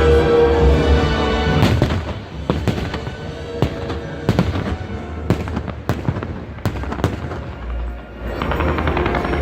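Fireworks going off: a quick string of sharp bangs and crackles from about two seconds in until about seven seconds, over loud music with a heavy bass that swells again near the end.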